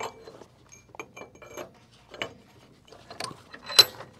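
Several light metallic clinks and knocks from a steel pipe being handled in a steel bench vise, with a louder ringing knock near the end.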